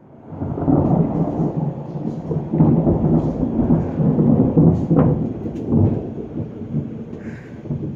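Thunder rumbling, swelling up within the first second and rolling on loudly before easing somewhat near the end.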